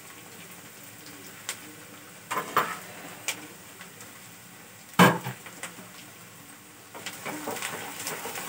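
Steel kitchen vessels knocking and clinking, with one loud ringing clang about five seconds in. Near the end a wooden spatula starts stirring semolina and peanuts in a non-stick frying pan.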